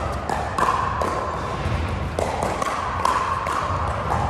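Pickleball paddles hitting plastic balls on several courts: a run of sharp, irregularly spaced pops, each ringing briefly in the echoing hall, over a steady low hum.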